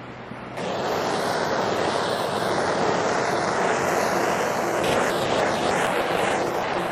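Workshop power tool starting about half a second in and running steadily with a loud, even rushing noise.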